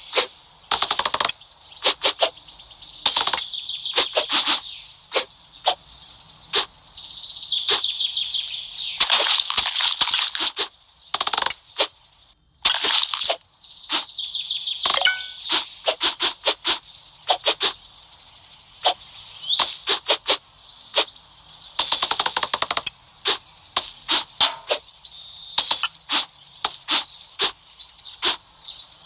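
Crisp cutting sounds: sharp clicks and crackles in irregular runs and clusters, with a few brief pauses.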